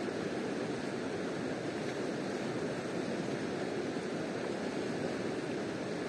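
A river's water rushing steadily, an even, continuous noise with no breaks.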